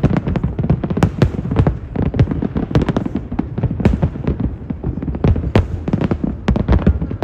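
Aerial fireworks display going off in a rapid, continuous string of overlapping bangs and crackles, several a second, over a low rumble.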